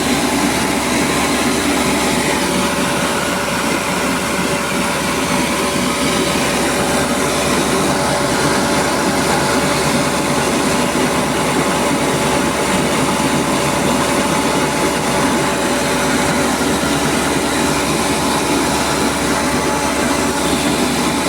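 Rice milling machine running steadily: a loud, constant mechanical drone with a steady hum and no letup.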